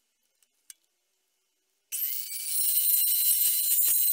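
A few faint clicks, then about two seconds in an Evolution metal-cutting chop saw switches on with a sudden high whine. About a second later its toothed blade starts biting into a metal plate clamped in the saw's vise, adding a rapid rattle over the whine.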